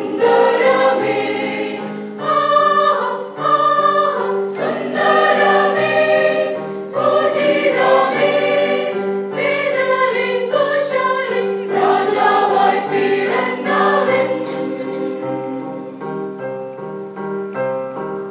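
Large mixed choir of men and women singing a carol in unison over an electronic keyboard accompaniment. About fourteen seconds in the voices stop and the keyboard plays on alone.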